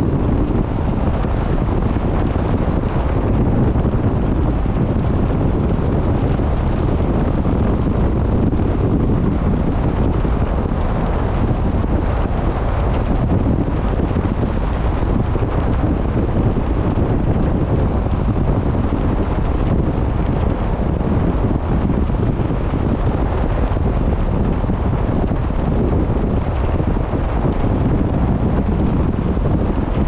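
Steady wind rushing over the microphone on a boat at sea, with the wash of the water beneath; a dense, low noise with no breaks.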